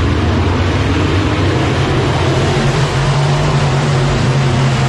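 A pack of dirt-track modified race cars running together at race speed, their V8 engines a loud steady drone that rises a little in pitch about halfway through.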